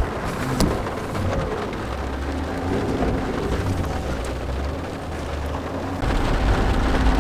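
Loaded truck driving in the rain: a steady low rumble of engine and road with rain noise over it, growing louder about six seconds in.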